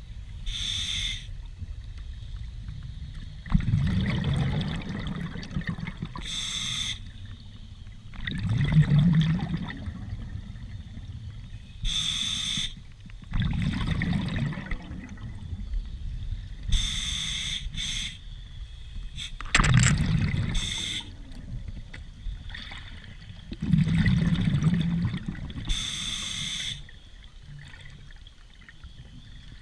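Scuba diver breathing underwater through a regulator: a short hissing inhale, then a louder rush of exhaled bubbles, repeating about every five to six seconds.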